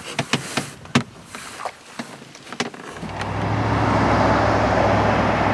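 A few sharp knocks and clicks of handling. About three seconds in, a steady motor hum starts, with a constant low tone, and grows louder.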